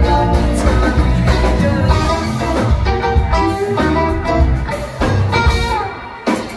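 Live rock band playing: electric guitars, bass and drums with singing. The band eases off and briefly drops out near the end.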